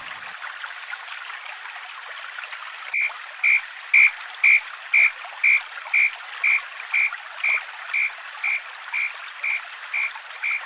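Japanese level-crossing warning bell starting about three seconds in, ringing a steady high tone about twice a second, over a steady hiss.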